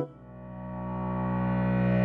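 Background music: a held chord that swells steadily louder.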